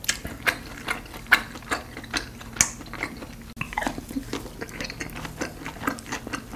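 Close-miked chewing with the mouth full: a run of wet clicks and smacks, roughly two a second, with a short dip about halfway through.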